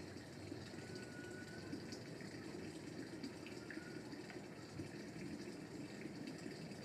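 Faint steady background noise like running water, with a few short, faint high chirps.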